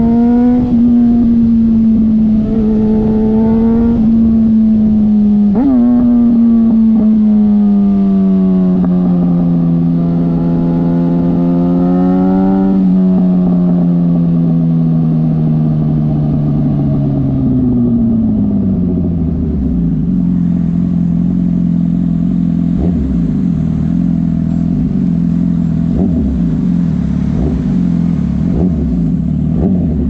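2005 Yamaha YZF-R1's inline-four engine through straight pipes, running loud at a steady high cruise. About a third of the way in the engine note begins to fall steadily as the bike slows, then settles into a lower steady note for the last third.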